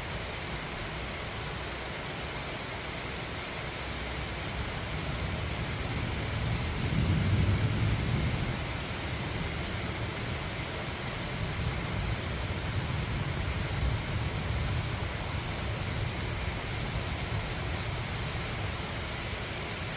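Steady rain falling, with low rolling thunder that swells about a third of the way in and rumbles on again through the middle.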